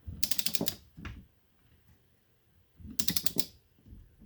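Ratchet of a torque wrench clicking in two quick runs, one at the start and one about three seconds in, with low thumps between, as the wrench on the flywheel rolls the Cannondale 440 engine over by hand.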